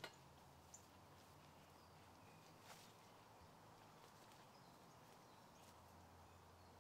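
Near silence: faint outdoor background with a low hum and a few soft clicks.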